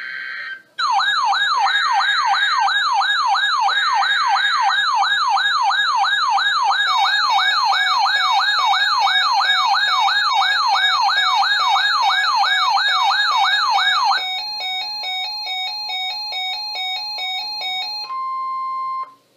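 Emergency Alert System alert tones ahead of a flood warning: a short burst of data tones, then a loud electronic siren tone warbling up and down about three times a second. About three-quarters of the way through it switches to a stepped, alternating tone, and it ends with a brief steady tone near 1 kHz.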